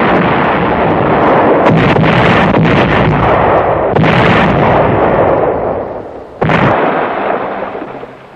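Heavy artillery fire: a sudden blast with a long rumbling tail and several further blasts inside it, then another sudden blast about six and a half seconds in that dies away.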